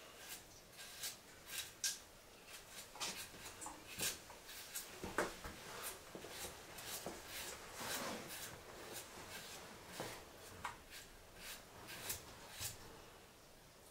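A large knife blade shaving the skin off a chayote in short, irregular scrapes, a few a second.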